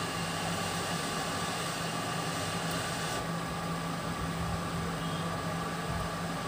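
Hot-air rework station blowing onto a phone's micro-USB charging connector: a steady hiss over a low hum. About three seconds in the upper hiss drops away as the nozzle is lifted off, leaving the hum.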